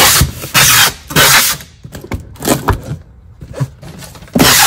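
Packing tape being pulled off the roll in quick, loud tearing strips to seal a cardboard shipping box: three strips in the first second and a half, and another near the end.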